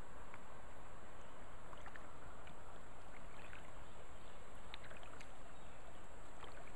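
Paddling sounds from a sit-on-top kayak on a river: faint splashes and drips from the paddle scattered through, over a steady hiss.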